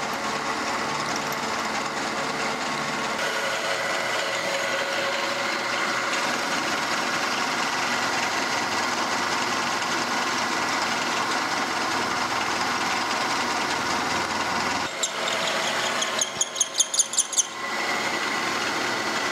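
A 5/8-inch end mill on a vertical milling machine cutting a slot in a forged steel spring hanger, the spindle and cut running steadily as the table is fed back and forth. Near the end comes a quick run of sharp, pulsing cutting sounds, about five a second, with a squeal in them.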